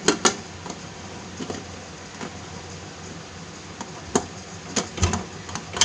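Aluminium pressure cooker lid being fitted and its whistle weight set onto the vent pipe: a few sharp metal clicks and clinks, the loudest about four seconds in and at the very end.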